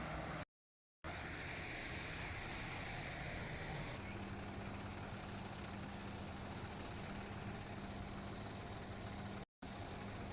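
CLAAS Crop Tiger combine harvester running steadily while cutting maize, a constant engine drone with a steady hum. The sound drops out for about half a second shortly after the start and again near the end.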